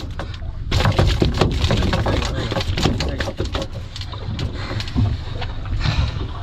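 A tuna spike being driven and worked into a bluefin tuna's head on a fiberglass boat deck: a run of short knocks, taps and scrapes over a steady low rumble.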